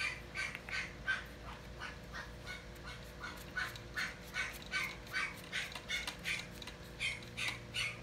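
Birds calling in a rapid, steady series of short calls, about three a second, with a faint steady hum underneath.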